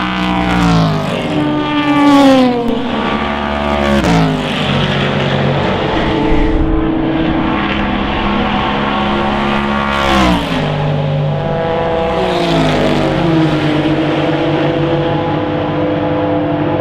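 Race cars passing at speed one after another, about five pass-bys, each engine note sweeping down in pitch as the car goes by, with engines holding steady notes in between. The V8 of the Aston Martin Vantage GTE is among them.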